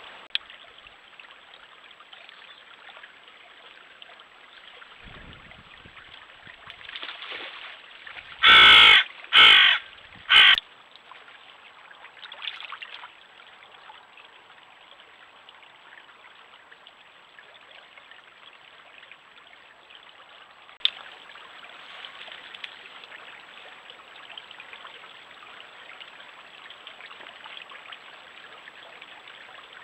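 A stream running steadily, with three loud, harsh animal calls in quick succession about nine seconds in.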